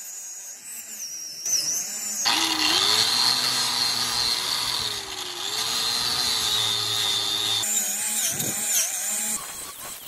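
Angle grinder with a wire wheel running against welded steel square tubing. Its pitch dips and wavers as it is pressed into the metal, with a heavier, louder stretch of contact from about two seconds in to nearly eight seconds. It runs lighter before and after that stretch and winds down near the end.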